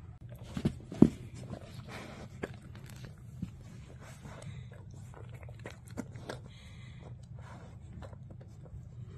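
Great Pyrenees dog nosing and sniffing through a felt snuffle mat for treats: irregular snuffling, rustling and small clicks, with two sharp knocks about a second in.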